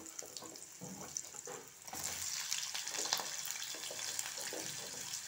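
Diced raw potatoes, freshly washed, going into hot mustard oil in a kadhai and sizzling, with small pops and crackles. The sizzle gets louder about two seconds in as more pieces go in.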